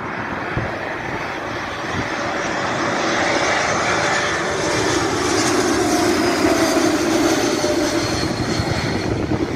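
Airbus A220-300 on final approach passing low overhead, its Pratt & Whitney PW1500G geared turbofan engines growing louder to a peak about six to seven seconds in, with a high whine over the rumble that dips slightly in pitch as it passes.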